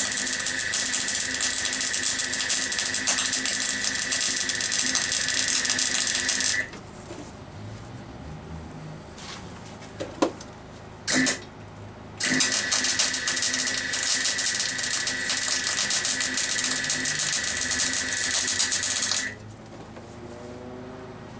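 Welding on the steel gearbox-mount bracket: two long, steady crackling weld runs that each cut off abruptly, with a brief tack between them.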